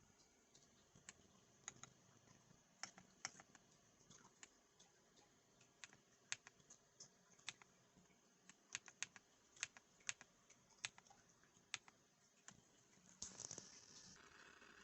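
Keys on a KiiBOOM Phantom 68 transparent mechanical keyboard with linear switches being pressed one at a time: faint, irregular single clacks. Near the end a louder rustling starts.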